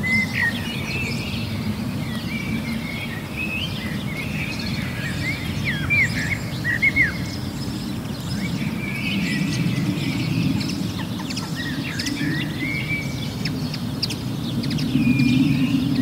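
Small songbirds chirping and singing in short, quick high phrases, over a steady low rumble of background noise.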